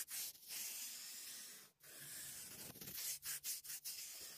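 Chisel-tip paint marker rubbing across a textured white surface as it lays down green paint, a faint scratchy hiss in long strokes, broken by a short gap a little before two seconds in and several quick dabs near the end.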